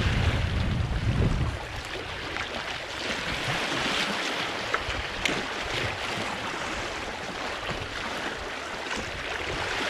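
Sea waves washing over shore rocks, a steady hiss. In the first second or so, wind buffets the microphone with a low rumble.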